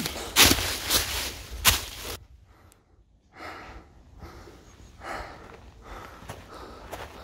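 Footsteps crunching through dry fallen leaves, with breathing. About two seconds in the sound cuts off to a much quieter stretch of faint, scattered small sounds.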